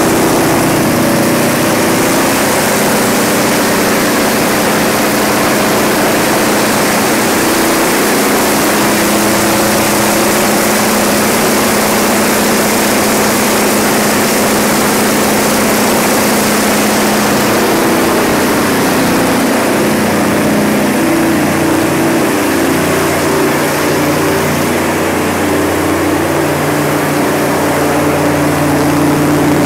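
Cummins VTA-28 V12 diesel engine of a 600 kW standby generator set, running steadily at constant governed speed: a loud, even engine noise with a steady hum that shifts slightly partway through.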